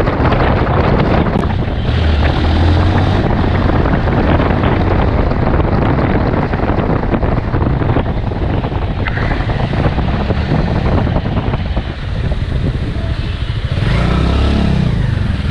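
Motorcycle riding along a road, recorded on a GoPro action camera's built-in microphone: engine running under a heavy rush of wind and road noise, with the engine note rising briefly near the end.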